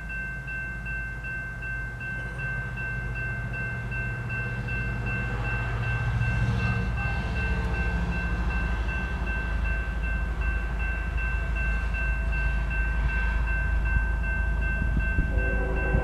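Railroad crossing warning bell ringing rapidly and steadily as the flashers work and the gate arm lowers, over the low rumble of an approaching freight train that grows louder. A locomotive horn comes in near the end.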